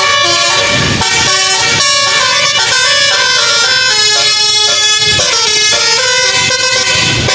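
Basuri telolet horn on a tour bus playing a tune: several air-horn tones sounding together, jumping from note to note in quick steps.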